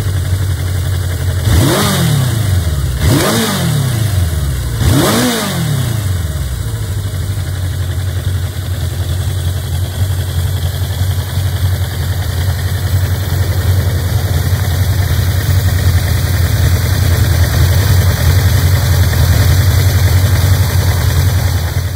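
Suzuki GSX750E's air-cooled inline-four running through its stock muffler. Three quick throttle blips in the first five seconds, each rising and falling back, then a steady idle.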